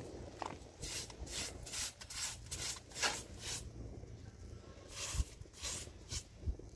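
Short hand broom sweeping a rug in quick brushing strokes, two to three a second, with a brief pause a little past the middle.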